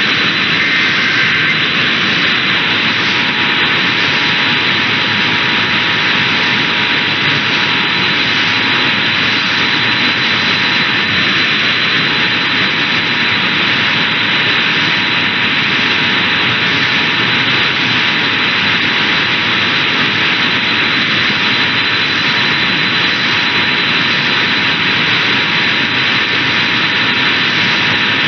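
Loud, steady radio static hiss. From a couple of seconds in, a faint two-note EAS attention signal holds steady underneath it, dropping out briefly twice.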